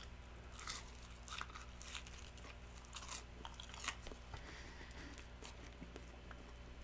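A person chewing and biting fast food close to the microphone, with soft crunches coming about once or twice a second.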